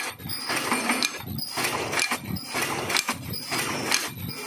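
Automatic mask welding machine running: a repeating cycle of mechanical clicks and clatter from its pneumatic actuators and feed mechanism as masks are fed, welded and stacked.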